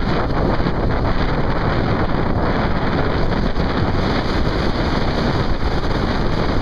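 Loud, steady wind rushing over the microphone of a camera moving at road speed, most likely on a motorcycle, with no distinct engine note standing out.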